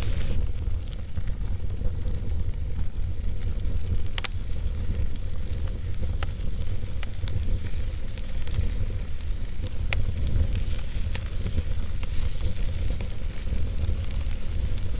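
Fire burning in a fireplace: a steady low rumble and hiss of flames, broken by scattered sharp crackles and pops.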